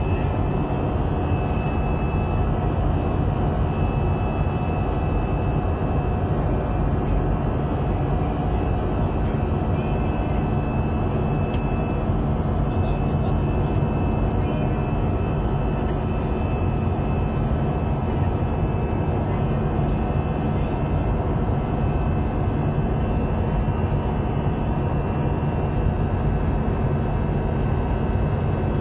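Steady drone of a passenger jet's cabin in flight: turbofan engines and rushing air heard from inside at a window seat, deep and even, with a faint thin high whine on top.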